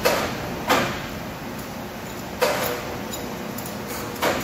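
Four sharp clanks and knocks, irregularly spaced, from a large machined steel ring on a crane lifting clamp being tipped and set down onto wooden blocks; the third leaves a short metallic ring. A steady shop noise runs underneath.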